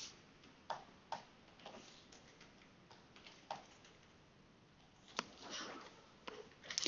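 Faint, scattered sharp clicks and taps of a stylus and keys on a computer drawing setup, a second or more apart. About five seconds in comes a short scratchy stroke of a pen across a drawing tablet as a highlight is painted, and a few quick clicks near the end.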